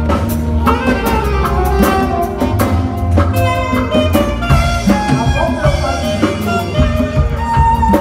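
Live band playing: an alto saxophone carries a melody in held notes over drum kit, congas and a steady bass line.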